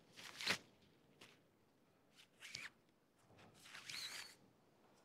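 Faint rustling and scraping of gear being handled, with a sharp click about half a second in and short squeaky scrapes near the middle and toward the end.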